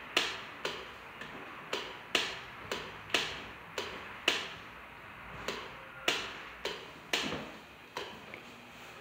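A series of sharp clicks or taps repeating about twice a second, slightly unevenly, each with a short ringing tail.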